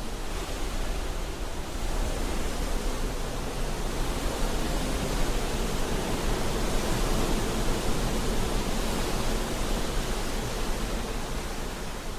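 Recorded weather sound effect: a steady, dense rushing hiss that swells about two seconds in and eases slightly near the end.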